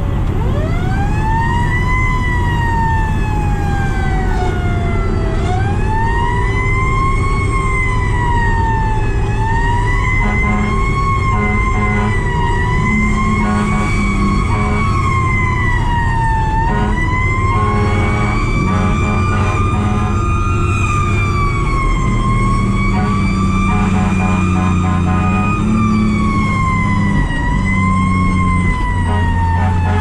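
A fire truck's siren winding up and coasting down again and again in uneven rises and falls, heard from inside the cab over the truck's engine. From about ten seconds in, low horn blasts sound on and off several times.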